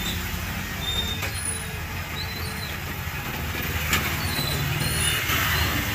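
Steady low rumble of street traffic with a fine background hiss, and two sharp clicks, about a second in and near four seconds in.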